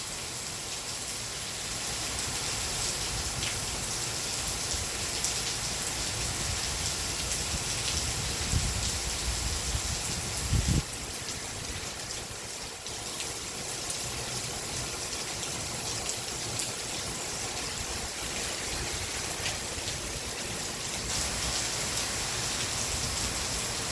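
Steady rain falling, a dense even hiss with fine drop ticks, and low rumbling swells with a short loud thump about eleven seconds in.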